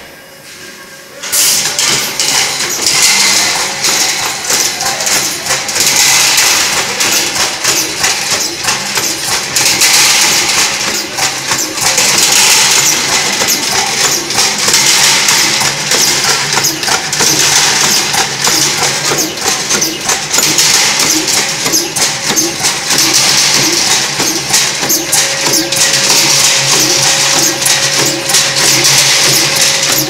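Cable tray cut-to-length line running: a flywheel mechanical power press working sheet steel strip fed by a roll feeder, making a loud, dense clatter of repeated metal strokes. It starts suddenly about a second in.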